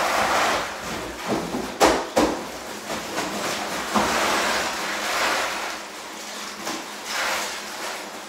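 A 20-pound bag of ice being emptied into a bathtub of cold water: irregular rustling, clattering and splashing that swells and fades, with a few sharp knocks.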